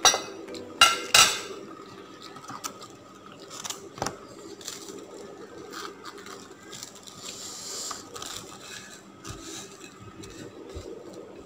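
Fingers picking through rice and stir-fried vegetables on a plate by hand: soft scraping and squishing, with three sharp clicks against the plate in the first second and a half and another about four seconds in.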